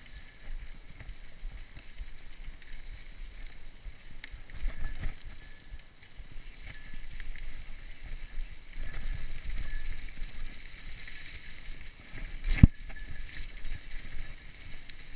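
Mountain bike rolling over a leaf-covered dirt trail: the tyres rumble over the ground and the bike rattles over bumps, in uneven surges. One sharp knock near the end is the loudest sound.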